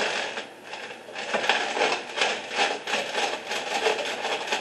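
Dried, microwaved eggshells crunching and crackling inside a plastic zip-top bag as a plastic cup is pressed and rubbed over them, a quick run of scraping crunches about three a second after a short pause near the start.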